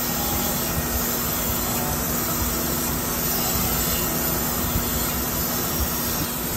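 Crankshaft grinder's wheel grinding a rod journal on a 454 big block Chevy crankshaft under flowing coolant, a steady hissing grind, taking the journal 0.010 in undersize.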